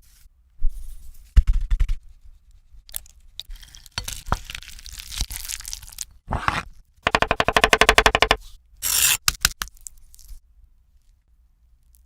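Kitchen food-preparation noises: a string of scrapes, taps and crackles, with a run of quick, evenly spaced strokes, about ten a second, lasting over a second past the middle.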